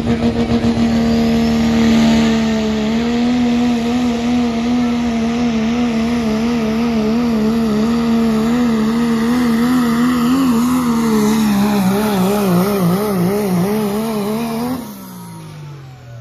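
Diesel four-wheel-drive pickup truck engine held at high revs under full load while pulling a sled. The steady note starts to waver up and down in pitch about 11 seconds in. Near the end the driver lets off and the engine note falls away.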